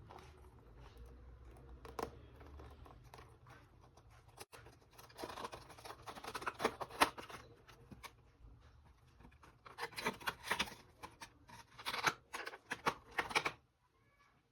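Pen packaging being handled and opened: rustling, scratching packaging noise in three bouts with a few small clicks, stopping shortly before the end.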